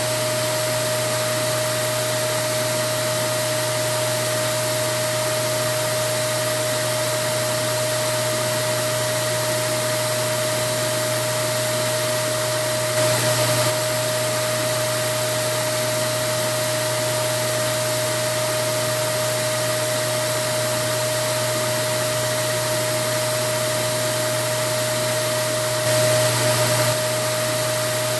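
Vacuum cleaner running steadily, an even rushing noise with a constant motor whine. It grows slightly louder for a moment twice, about halfway through and near the end.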